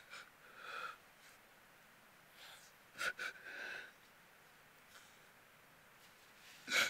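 A man crying quietly: a few short breathy sobs and sniffs, one about a second in, a cluster about three seconds in, and a sharper one near the end, with near quiet between.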